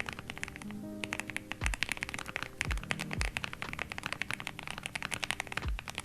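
Fast typing on a mechanical keyboard fitted with Gateron Oil King linear switches: a dense run of keystroke clacks with a brief pause about a second in. Background music with a deep bass beat plays underneath.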